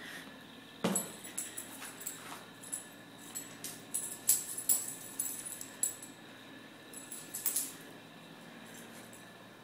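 Keeshond puppy playing on a rug: irregular scuffles and quick light clicks, with a thump about a second in.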